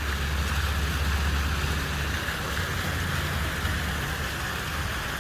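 Plaza water fountain jets splashing steadily, with a low rumble underneath that eases off about halfway through.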